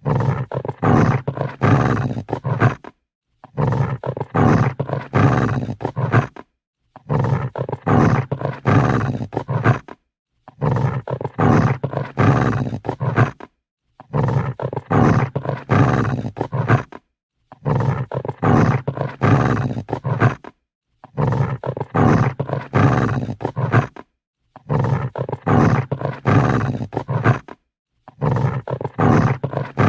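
Angry dog growling in pulses, about three seconds of growl repeated over and over with a brief silence between repeats.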